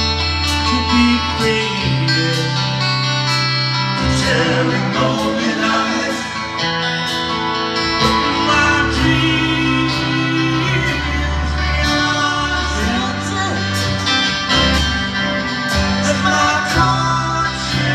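Live rock band playing a slow song: a sung lead vocal over strummed guitar and a bass line.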